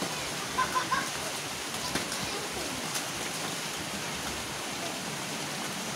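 Steady rain falling, an even hiss, with children's voices faint in the distance. A little over half a second in come three short, high-pitched notes close together.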